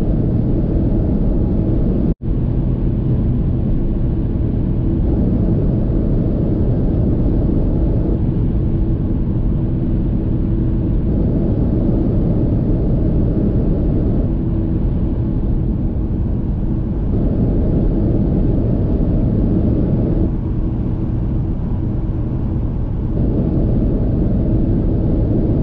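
Steady road noise inside a Toyota 4Runner's cabin at highway speed: a loud, dense rumble with a faint hum through it. It shifts in character every few seconds, as if short clips are spliced together, and cuts out for a moment about two seconds in.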